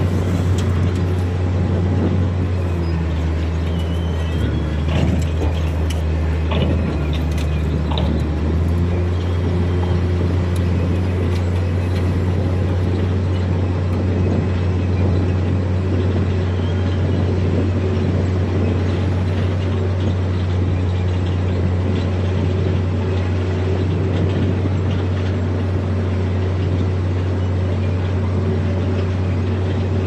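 Heavy earthmoving machine's diesel engine running steadily, its note shifting slightly between about three and eight seconds in, with a few metallic clanks in that stretch.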